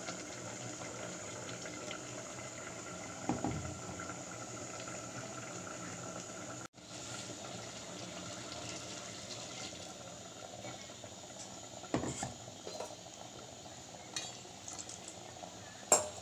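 Tamarind curry simmering in a metal pot, a steady bubbling, while a steel spoon stirs in ground coconut paste and knocks against the pot four times.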